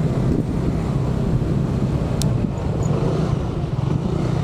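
Honda ADV150 scooter running steadily on the road, its low engine rumble mixed with wind rushing over the helmet microphone. A short click about two seconds in.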